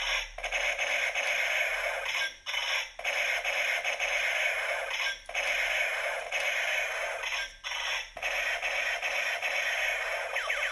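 Battery-powered toy space gun's electronic sound effect playing through its small built-in speaker: a harsh, tinny electronic noise in stretches of about two seconds with short breaks between. Near the end, quick falling laser-like sweeps begin.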